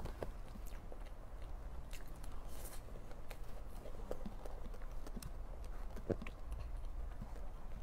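Close-up eating sounds from someone eating soft cream cake with a spoon: chewing and wet mouth smacks, with scattered small clicks, over a low steady hum.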